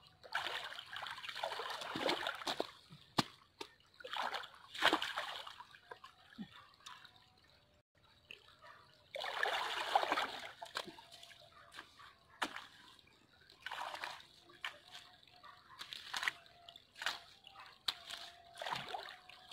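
Water splashing and sloshing as a spade digs and shifts wet mud in a flooded irrigation channel, coming in three longer bursts and several shorter ones, with sharp knocks in between.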